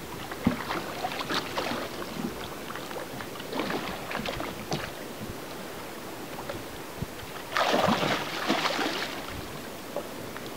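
Hooked fish thrashing and splashing at the water surface beside the boat, in several bouts, the loudest about three-quarters of the way through, over a steady wash of water against the hull.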